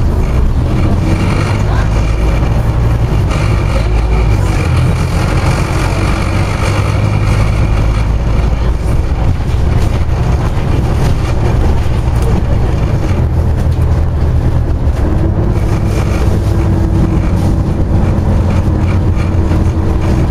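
Scania OmniCity double-decker bus under way, heard from inside the saloon: the engine and drivetrain run with a loud, steady low drone. A steady higher whine joins in about three quarters of the way through.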